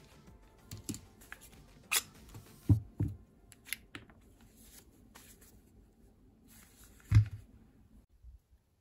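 A series of sharp mechanical clicks and knocks from an HDP 50 pistol fitted with a silencer kit, several of them with a dull thud, the loudest about seven seconds in.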